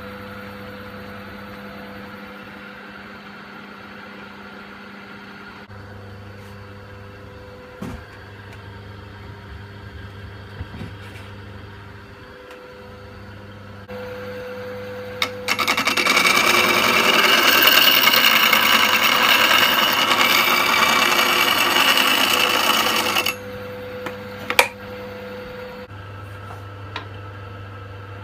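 A 1977 Coronet Major wood lathe runs with a steady hum from its belt-driven electric motor. About halfway through, a gouge cuts into the spinning wooden bowl blank, a loud, harsh shearing noise that lasts about eight seconds before the lathe hums on alone with a couple of clicks.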